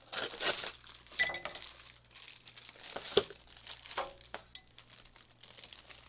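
Plastic packaging crinkling, with several sharp clicks and clinks of small hard plastic and metal parts as a Big Bang Pegasis Beyblade is unpacked. The loudest click comes about three seconds in.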